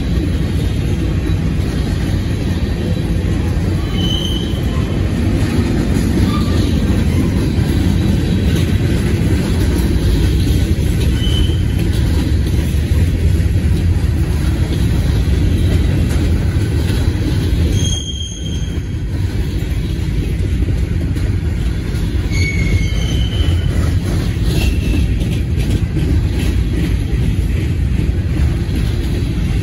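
Freight train cars, covered hoppers then open gondolas, rolling past close by: a steady heavy rumble of steel wheels on the rails. A few brief high squeals from the wheels come and go.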